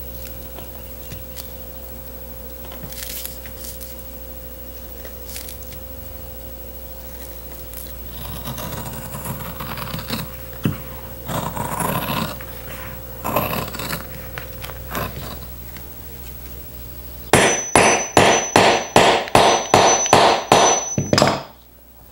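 Large upholstery shears cutting through a rubber mat in several strokes. Near the end comes the loudest part: a hammer striking a hand hole punch about ten times in quick, even succession, punching holes through the rubber mat on a wooden block.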